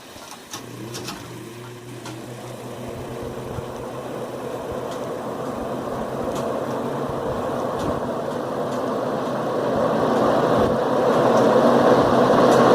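A 1978 Lakewood S-223 box fan with a McMillan motor, freshly cleaned and oiled, switched on with a click and spinning up: a steady motor hum with a rush of air that grows steadily louder, louder again near the end.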